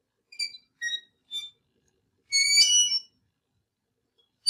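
Ice cream truck jingle in a cartoon: high-pitched electronic notes, three short ones about half a second apart, then a longer cluster of notes about two and a half seconds in.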